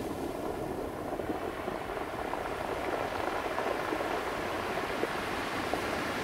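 Ocean surf: a steady rush of breaking waves and washing foam, the hiss swelling brighter in the second half.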